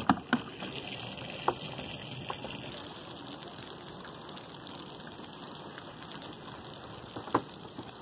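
Water from a hose spraying and splashing down onto the boat and the marina water in a steady hiss, with a few short sharp knocks, the loudest about seven seconds in.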